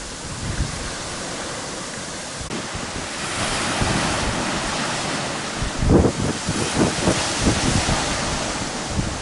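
Gusty wind rushing over the microphone with the wash of waves, growing stronger about three seconds in and buffeting the microphone in low, uneven gusts from about six seconds on.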